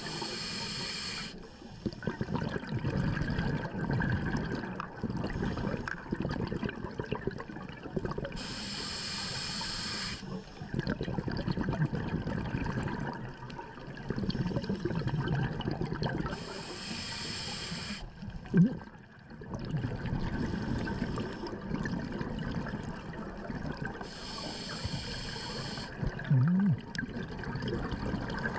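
Scuba diver breathing through a regulator underwater: a hiss of inhalation about every eight seconds, each followed by the rumbling gurgle of exhaled bubbles. Two short low sounds stand out, one about two-thirds of the way in and another near the end.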